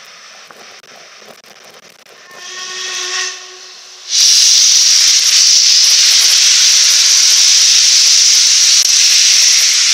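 LMS Princess Coronation class steam locomotive 46233 Duchess of Sutherland: a short whistle blast about two and a half seconds in. About four seconds in comes a sudden, loud, steady hiss of steam escaping close by.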